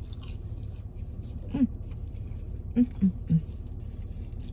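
Steady low hum inside a car, broken by one short low voice-like sound about a second and a half in and three more near the end, each a little lower in pitch than the one before.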